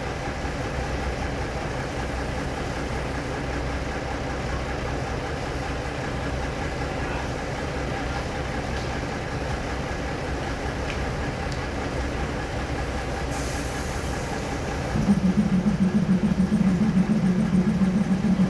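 A diesel passenger train's engine running steadily at the platform. About fifteen seconds in, a much louder, deeper engine rumble starts suddenly and carries on.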